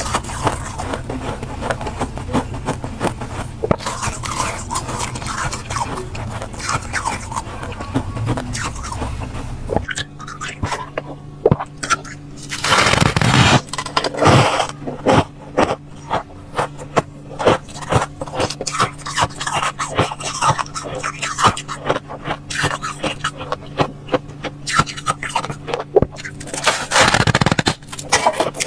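Thick, soft freezer frost being scraped out with a spoon and bitten, a dense run of small crunches and crackles, louder in a couple of spells.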